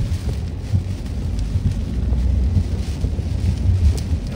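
Heavy tropical-storm rain beating on a moving car, with a steady low rumble underneath and scattered sharp drop hits.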